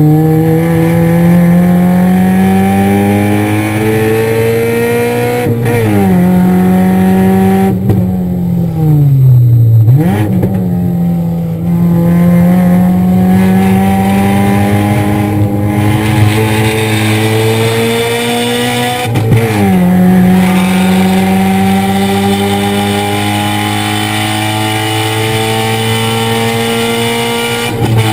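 Car engine heard from inside the cabin, accelerating hard: its pitch climbs steadily and drops sharply at each upshift, about six seconds in, around nineteen seconds in and again at the very end. Around eight to ten seconds in the revs sag, then pick up and climb again.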